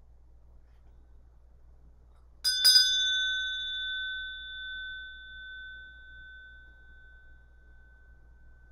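A small meditation bell struck twice in quick succession about two and a half seconds in, then ringing with a clear high tone that slowly fades with a gentle waver. The chime marks the end of a period of silent meditation.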